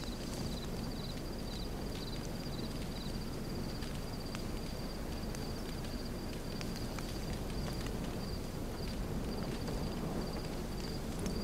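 Crickets chirping in a steady, high, pulsing trill over a low background hiss.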